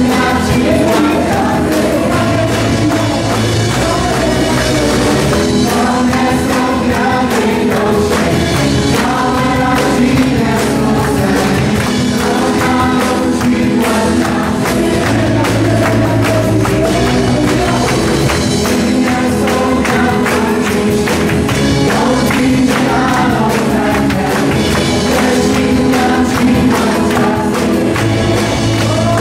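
Live praise and worship band: several voices singing together over electric guitar and drums, at a steady loud level.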